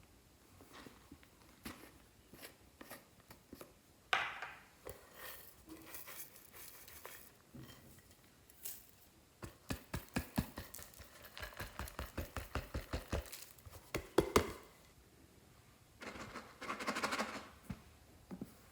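Glossy slime being pressed, poked and stretched by hand, giving sticky clicks and pops, with a quick run of clicks at about four or five a second midway and a few short crackling squelches.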